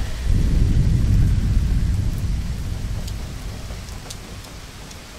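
Deep rumble with a hiss of noise, swelling just after the start and slowly fading away, with a few faint crackles near the end: the sound effect of an animated intro title.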